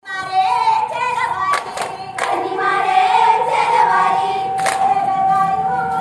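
A group of high female voices singing a song together in unison, holding long notes, with a few sharp hand claps in the first half.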